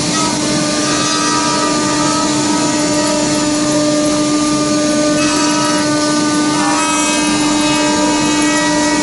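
Multi-spindle CNC router carving wood: the spindles give a steady whine over the hiss of the bits cutting.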